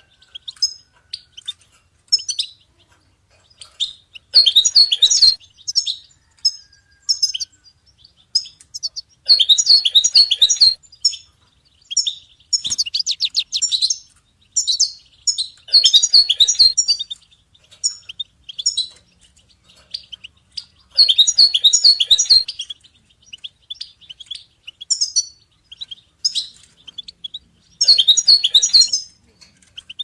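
European goldfinch singing: quick high twittering notes throughout, with louder dense phrases every few seconds and a fast rattling trill about halfway through.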